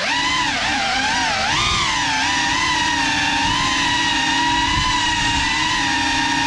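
GEPRC Cinelog 35 ducted cinewhoop's motors and propellers whining, the pitch dipping and rising with the throttle, then holding steady through the second half.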